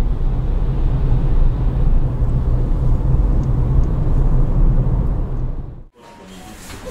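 Car driving, heard from inside the cabin: a steady low rumble of engine and road noise. It cuts off abruptly near the end and is followed by much quieter room sound.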